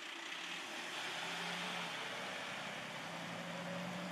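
Diesel engine of a Rosenbauer L32A-XS aerial ladder fire truck pulling away. Its steady engine note rises a little in pitch about halfway through.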